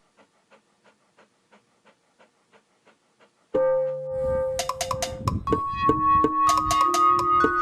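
Background instrumental music. It breaks off into near silence with only faint quick ticking, about four a second. After about three and a half seconds it comes back with a held note, then a bright keyboard melody of quick notes over low drum hits.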